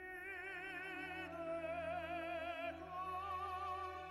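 Background classical music: a high melody held in long, wavering notes over a steady low accompaniment, changing note about a second in and again near the middle.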